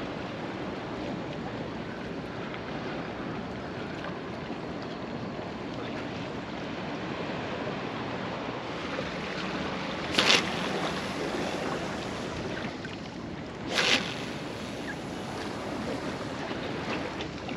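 Small sea waves washing against breakwater rocks, with wind on the microphone: a steady wash of noise, broken by two brief louder bursts about ten and fourteen seconds in.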